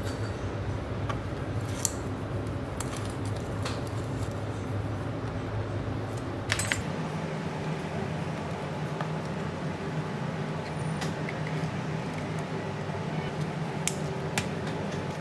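Scattered light clicks and taps of fingers handling a smartphone's metal frame and a small metal part, over a steady background hum.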